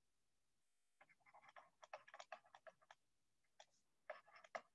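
Faint, quick, irregular tapping and scratching of a pen stylus on a writing tablet as words are handwritten, in two runs with a short pause between them.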